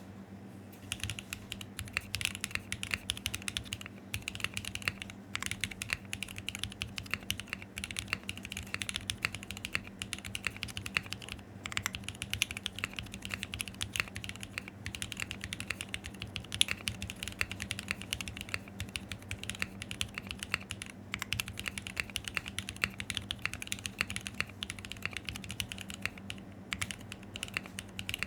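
Continuous fast typing on a custom mechanical keyboard, a Unikorn R2.1 with a carbon fibre plate, lubed Zykos switches, JWK stabilisers and Infinikey Hive keycaps: a dense patter of key strikes with brief pauses, starting about a second in. A faint steady low hum sits underneath.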